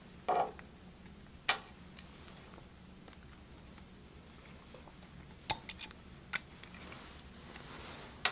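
Scattered light clicks and taps of small hard parts as a prop shaft is worked through an R. M. Young Wind Monitor's nose cone to push out its flange bearings. The loudest is a sharp click about five and a half seconds in, followed by a few quicker clicks.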